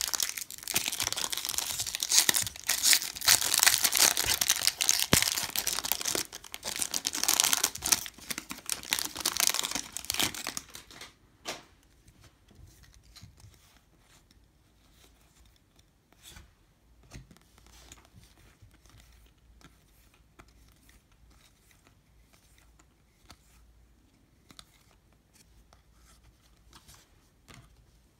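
Foil wrapper of a Topps baseball card pack being torn open and crinkled for about eleven seconds. After that come faint, scattered ticks of cards being handled and flipped through the stack.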